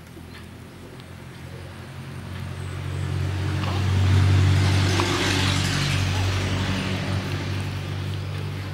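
A motor vehicle's engine, growing louder to a peak about four seconds in and then slowly fading.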